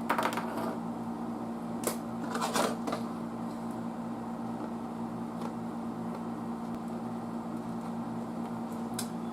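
A few light clicks and rustles of things being handled on a workbench, over a steady low hum that runs throughout.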